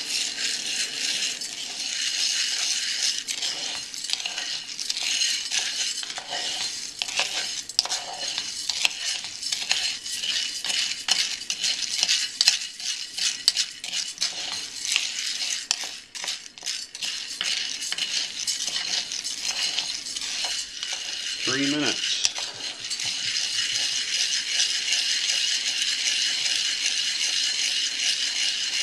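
Wooden stirrer sweeping raw green coffee beans around a hot cast iron pan: a continuous dry rattle and scrape of beans against the iron, with dense small clicks. The beans are still early in the roast, before first crack.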